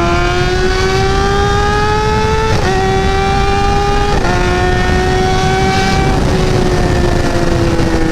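Kawasaki ZX-10R's inline-four engine pulling with a slowly rising note, with two quick upshifts about two and a half and four seconds in. From about six seconds the throttle eases off and the note falls. Heavy wind rush sits on the microphone.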